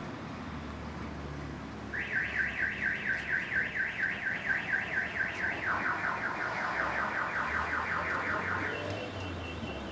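Car alarm going off about two seconds in and cycling through its tones. First comes a fast rising whoop repeated about five times a second, then a lower, quicker warble, then a higher repeated chirp near the end.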